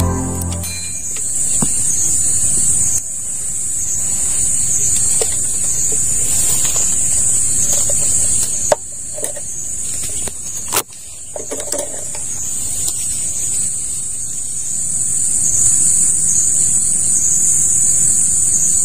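Steady high-pitched insect chorus, with a few sharp clicks about halfway through.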